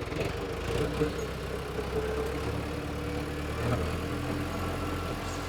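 Tractor engine running steadily, with an even low throb.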